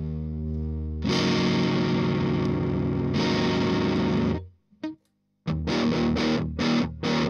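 Electric guitar played through an MXR Fet Driver MOSFET overdrive pedal, sounding distorted. A held chord gives way about a second in to a louder, brighter chord that rings for about three seconds; after a short note and a brief gap come short, choppy chord stabs.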